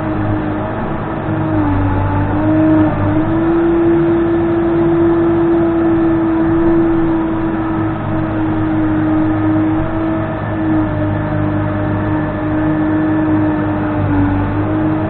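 Case 580N backhoe loader running at working revs: a steady engine drone with a clear whine on top, its pitch sagging briefly a couple of times and then recovering.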